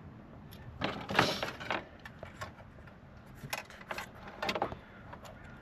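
Small metal tools and parts clinking and rattling: a burst of rattling and scraping about a second in, then a quick run of sharp clicks near the middle.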